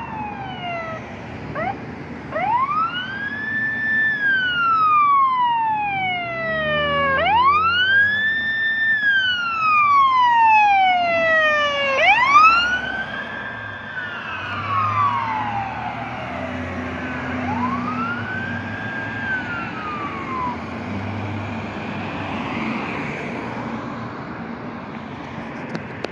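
BC Ambulance Service emergency vehicle siren in wail mode, each cycle a slow rise and a long fall taking about four to five seconds, over the rumble of the vehicle on the road. The wail fades away after about twenty seconds as the unit drives off, leaving road traffic noise.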